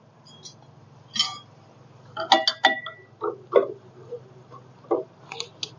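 A wrench clinking and clicking against metal while bolts holding an engine's cooling fan are tightened: scattered short clinks, one with a brief metallic ring, over a faint low hum.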